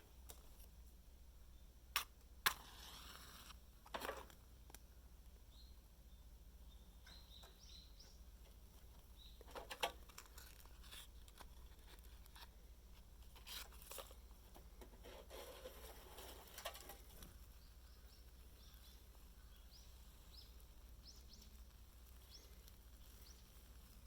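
Mostly quiet outdoor ambience broken by a few scattered knocks and short rustles, with faint short bird chirps now and then.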